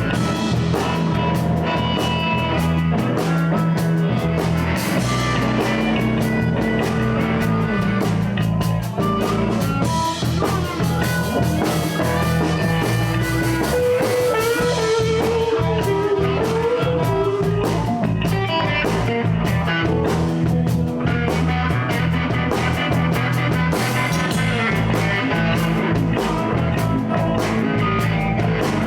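Live blues band playing an instrumental passage: guitars over bass and a drum kit, with a bending lead line in the middle.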